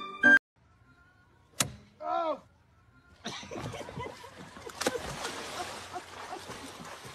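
A man falling off a dock into lake water: a sharp hit, then splashing and churning water. Before it there is a sharp click and a short sliding call, and the last piano note of a music sting at the very start.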